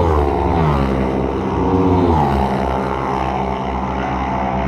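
Racing motorcycle engines running hard, their pitch dropping sharply right at the start and again about two seconds in.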